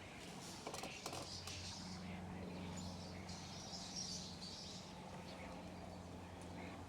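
Faint chirping of small birds, loudest about halfway through, over a steady low hum, with a few sharp clicks about a second in.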